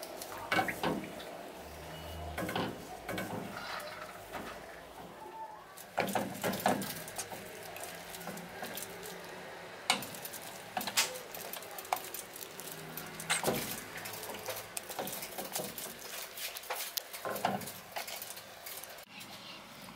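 Silicone spatula stirring and scraping custard in a nonstick saucepan: irregular wet squelches and scrapes with light taps against the pan. The pastry cream is thickening as it cooks.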